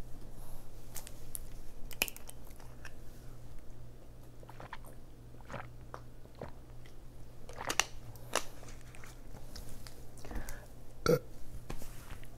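Mouth and swallowing sounds as water is drunk from a plastic bottle, with scattered small clicks and crackles from the bottle being handled. A faint steady hum lies underneath.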